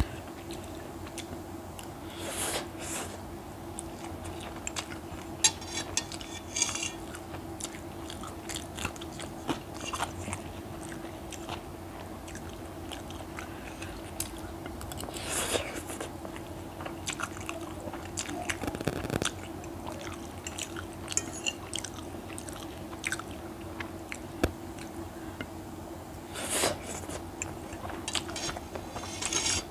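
Eating Maggi instant noodles with a fork from a ceramic plate: close-up chewing and slurping of noodles, with three louder slurps spread through and many small clicks of the fork against the plate. A steady low hum runs underneath.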